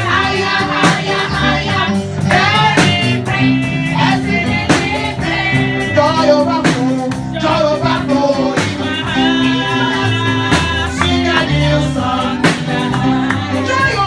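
Music with singing over a bass line and percussion strikes.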